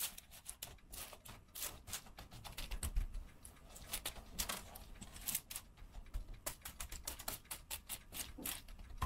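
Dry granola ingredients being handled in the kitchen: a quick, irregular run of light clicks and rattles, several a second, with a few soft low knocks.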